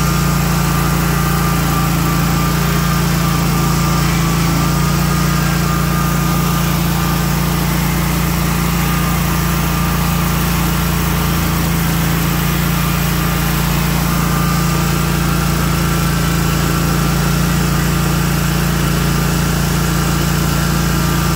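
Lawn mower engine running steadily at a constant speed, with no change in pitch or level throughout.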